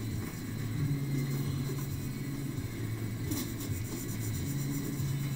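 Pencil shading on paper: graphite rubbed back and forth in continuous strokes, heard mostly as a low, uneven rubbing rumble.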